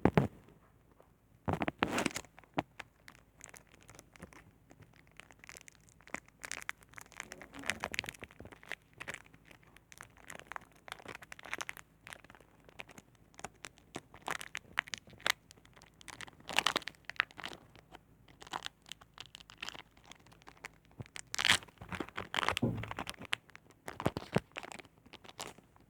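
Pokémon card packaging crinkling and rustling as cards and wrappers are handled, with irregular crackles and taps and a few louder bursts.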